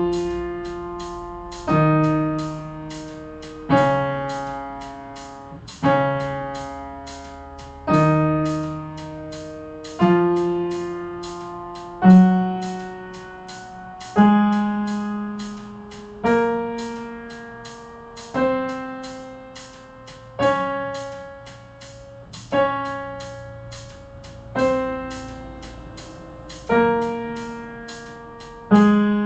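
Piano playing the D-flat major scale in slow dotted half notes, harmonised: a new chord is struck about every two seconds and left to ring and fade.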